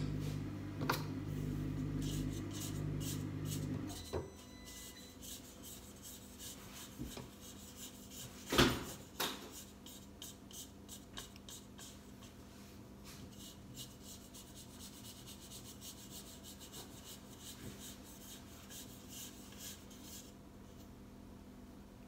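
A stand mixer's motor hums and stops about four seconds in. Then a spatula scrapes and rubs batter around the inside of a stainless steel mixing bowl, with one knock against the bowl near the middle.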